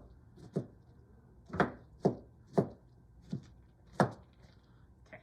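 Big kitchen knife chopping cauliflower on a cutting board: about six separate, irregular knocks.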